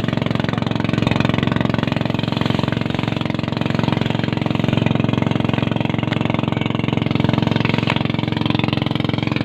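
Boat engine running steadily at an even speed, with a rapid, fast-firing pulse.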